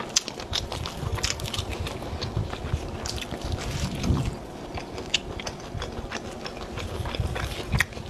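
Close-miked chewing and biting of fried, breaded food, with many small crackles throughout.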